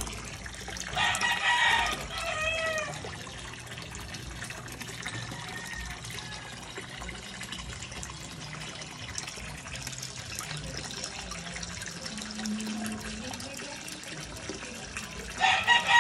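Water pouring steadily from a pipe into a koi pond, with a rooster crowing twice: once about a second in and again near the end, each crow about two seconds long with a falling tail.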